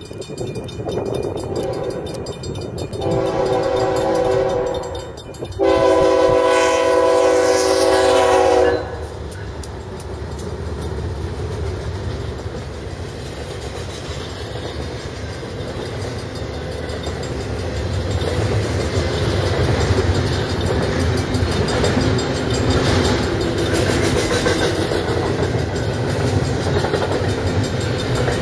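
BNSF freight diesel locomotive sounding its multi-chime horn for a grade crossing: a shorter blast, then a longer, louder one. After that comes the steady rumble and wheel clatter of double-stack container cars rolling past, growing louder.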